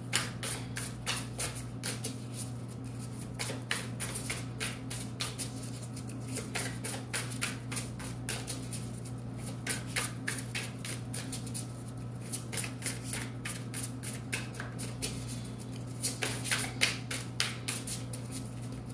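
A tarot deck being shuffled by hand, heard as irregular runs of quick card flicks and snaps with short pauses between them. A steady low hum runs underneath.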